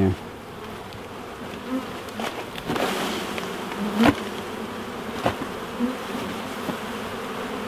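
Swarm of honey bees buzzing steadily around an open hive being installed from a nuc, with a couple of sharp knocks about four and five seconds in.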